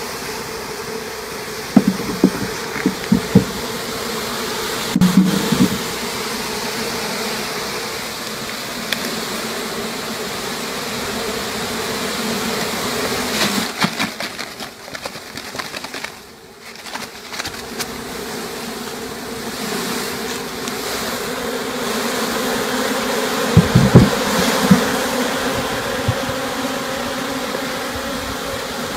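A honeybee swarm buzzing as a steady, dense hum while it is shaken from a net bag into a wooden hive box. Several loud dull knocks from handling come a couple of seconds in, again around five seconds, and near the end.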